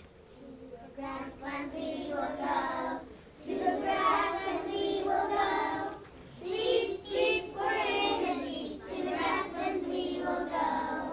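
Young children singing a song in three phrases with held notes.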